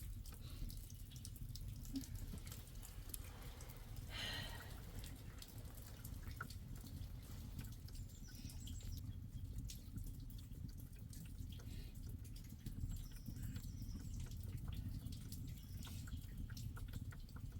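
Water dripping in irregular, scattered drops over a steady low rumble, with a brief swishing burst about four seconds in.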